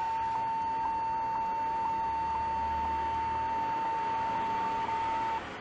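Compaq Presario CQ42 laptop giving a continuous single-pitch beep tone at power-on, which cuts off suddenly near the end.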